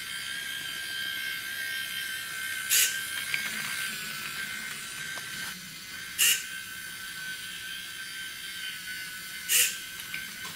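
A battery-powered toy train's small electric motor whines steadily on a high thin note. Three times, about every three and a half seconds, it is cut across by a short, loud whirr from the hobby servos swinging the crossing barriers.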